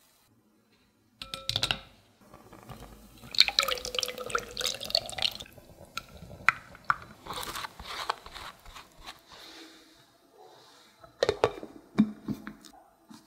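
Thick crepe batter poured from a glass bowl through a fine mesh sieve, splashing and dripping into the glass bowl below, with a few clinks of bowl and sieve. Near the end, a plate is set down over the bowl with a couple of knocks.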